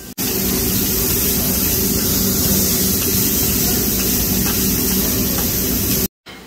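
Steak, salmon and shrimp sizzling on a hot teppanyaki griddle: a loud, steady hiss with a low hum underneath.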